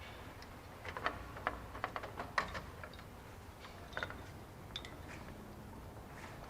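Scattered light clicks and taps, a cluster of them about a second in and a couple more near four and five seconds: a hood latch release cable and its housing being handled and fished through the engine bay.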